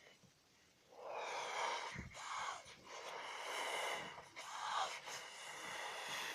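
A person blowing out hard in several long, breathy puffs, about a second or so each, with short catches of breath between them. The puffs start about a second in.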